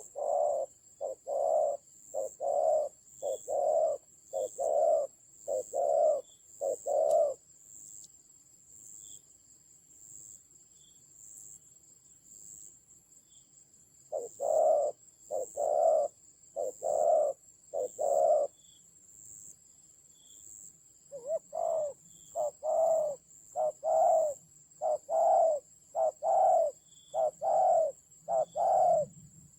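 Spotted doves cooing: three runs of short, evenly repeated coos, about one or two a second, with pauses between runs. A steady high insect trill runs behind them.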